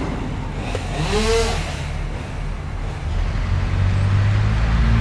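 Crane engine running steadily, growing louder about three and a half seconds in, with a brief rising-and-falling pitched sound about a second in.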